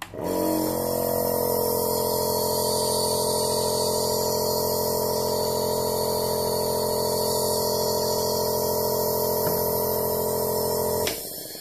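Redline compressor nebulizer running, spraying medication: a steady electric compressor hum with a hiss of air, switched on at the start and cut off about 11 seconds in, with a click as it stops.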